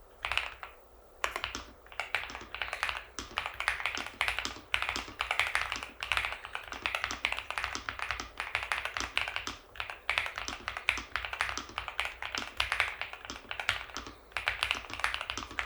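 NuPhy Halo V2 gasket-mount mechanical keyboard with stock Raspberry linear switches and PBT keycaps, typed on fast in a dense stream of key strikes. There is a short pause about a second in.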